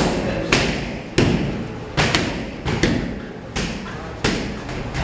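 Strikes landing on Muay Thai pads and focus mitts held by training partners: sharp smacks at an uneven pace, about nine in five seconds, from several pairs working at once.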